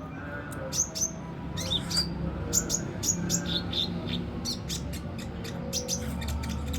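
Kolibri ninja, a small sunbird, giving many short, sharp, high chirps in quick irregular succession, some sweeping down in pitch, over a low steady hum.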